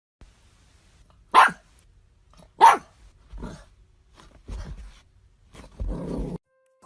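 Golden retriever puppy barking: two loud, sharp barks about a second and a half apart, followed by several softer sounds. The sound cuts off abruptly near the end.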